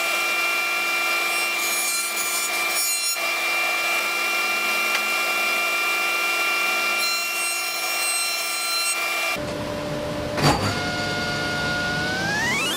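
Jointer running while a spotted gum hardwood board is fed across its cutterhead: a steady machine whine with cutting noise over it. About nine seconds in the sound changes abruptly; after a click, a table saw motor starts and its whine rises in pitch near the end as it spins up.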